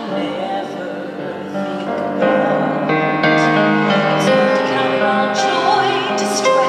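A woman singing a slow ballad with vibrato, accompanied by an upright piano playing held chords; it grows a little louder about two seconds in.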